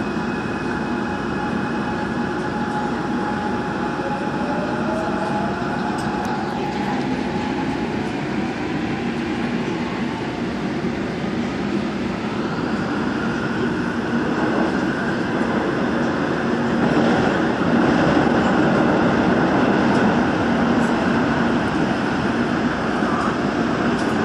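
Gwangju Metro Line 1 subway train running through a tunnel, heard from inside the car: steady wheel and running noise with a motor whine that rises in pitch as the train gathers speed. It grows louder about fourteen seconds in and again a few seconds later.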